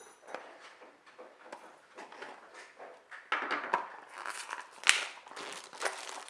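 Packaging being handled and unwrapped: irregular rustling and crinkling that grows busier and louder about three seconds in, with one sharp click about five seconds in.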